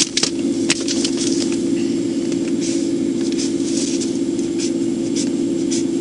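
A steady hum with irregular crackles and rustling clicks over it.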